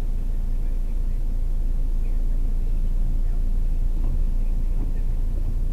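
Car engine idling while stopped in traffic, heard from inside the cabin as a steady low rumble.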